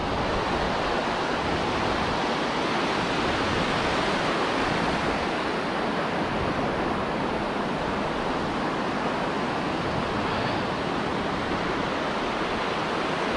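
Surf washing in over a shallow sandy beach: a steady, even rush of breaking waves and foam.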